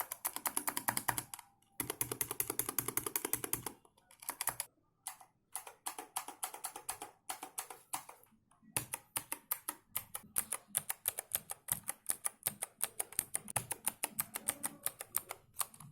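Cosmic Byte GK-12 Neon mechanical keyboard with blue switches being typed on: fast runs of clicky keystrokes, broken by a few short pauses.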